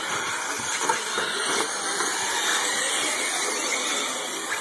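Electric 4WD radio-control short-course trucks racing on a dirt track, heard as a steady hiss of motors and tyres with no clear engine note.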